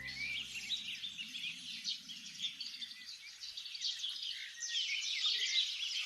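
Many small songbirds chirping and twittering at once, a dense chorus of short high calls and trills overlapping throughout.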